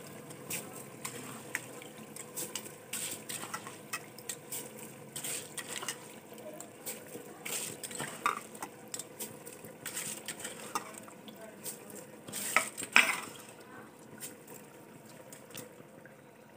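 Metal spatula stirring rice in a pressure cooker pot, with irregular scrapes and clinks against the pot's sides over a faint steady hum.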